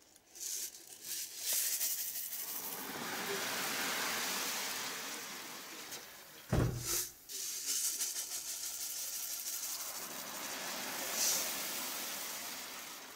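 Water hissing and fizzing in a plastic tub as caustic soda is mixed into it, the surface churning with bubbles and foam; one knock about halfway through.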